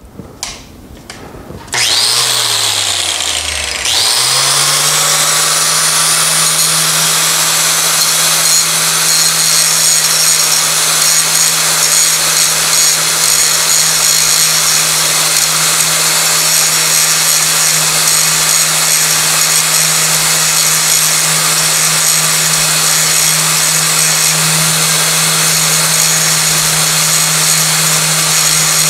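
Makita angle grinder switched on about two seconds in, its motor whine settling about two seconds later, then grinding steadily on steel: the disc is taking the peened-over pin heads off a motorcycle chain link so the link can be pressed out.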